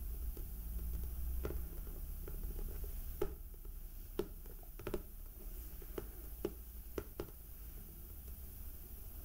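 Fingertips and nails tapping lightly on the hardcover of a comic album: about ten separate taps at an irregular pace, clearest between about three and seven and a half seconds in, over a steady low hum.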